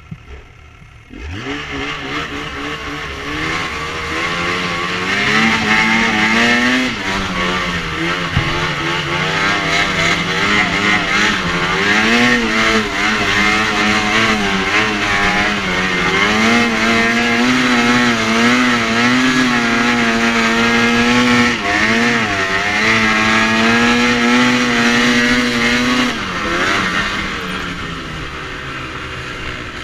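Two-stroke snowmobile engine at high revs, the pitch climbing over the first few seconds, then held high with small rises and dips as the throttle is worked, and easing off near the end.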